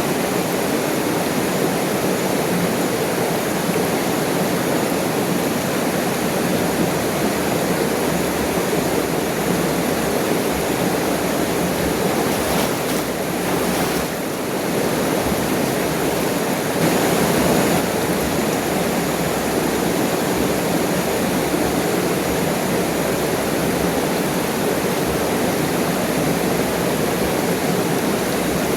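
Waterfall crashing steadily into its pool, a continuous rushing of falling water.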